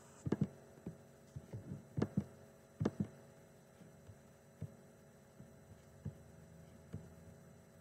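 Scattered soft mouse clicks, about a dozen at irregular intervals, picked up by a laptop's built-in microphone over a faint steady electrical hum.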